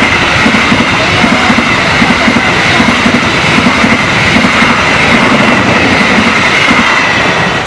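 Passenger train coaches passing close at speed: a loud rush of wheels and rails with a rhythmic clatter as the wheels cross rail joints, and a steady high squeal running along with it. The noise begins to fall away at the very end as the last coach clears.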